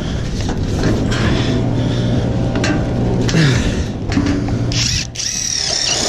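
Knocks and handling clatter of a gypsum-board strip against a steel door frame. Then, about five seconds in, a Hilti cordless impact driver runs with a high whine, driving a screw through the frame's clip into a steel stud, with a brief let-off of the trigger.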